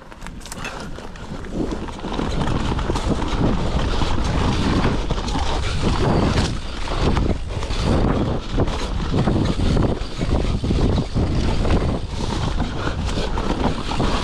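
Mountain bike ridden fast along a dirt forest trail: wind rushing over the handlebar-height camera microphone, with the tyres rolling over dirt and roots and the bike rattling and knocking over bumps. It grows louder over the first couple of seconds as speed builds, then stays loud with frequent sharp knocks.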